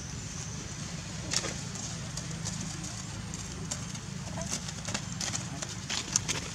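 Outdoor background with a steady low hum and a few scattered sharp clicks and rustles, the loudest click about six seconds in.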